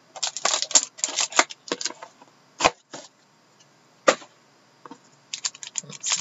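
Crackling and rustling of a trading-card box being torn open and its packaging handled: quick dense rustles for the first two seconds, two sharp clicks with a lull between, then more crinkling near the end.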